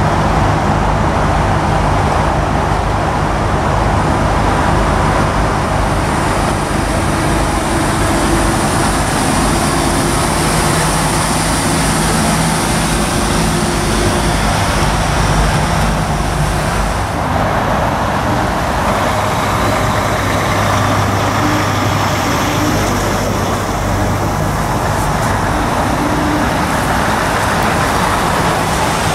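Diesel engines of articulated lorries running as they drive slowly past one after another: first a Mercedes-Benz Actros, then a Scania, with a steady engine drone and tyre noise whose pitch shifts as one truck gives way to the next.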